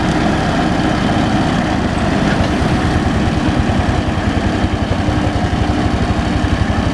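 Backhoe's diesel engine idling with a steady low throb, its even pulsing growing more distinct toward the end.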